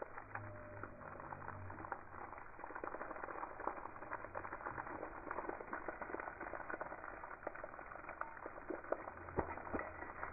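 Water from a garden hose spraying onto a wet Labrador and splattering on wet brick paving: continuous spattering with many small irregular splashes.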